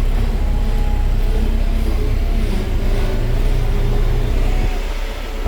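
Tractor engine running steadily under load, heard close up, with a brief dip in loudness near the end.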